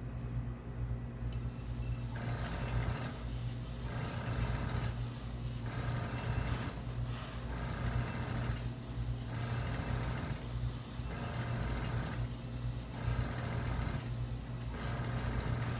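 Airbrush spraying in short repeated bursts as the trigger is pulled and released, a hiss roughly every second and a half to two seconds, starting about a second in, over a steady low hum.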